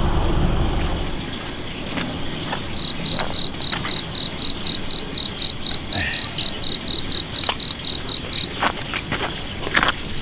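Insect chirping: a steady run of short high chirps, about four a second, starting about three seconds in and stopping after about five and a half seconds. A few light clicks follow near the end.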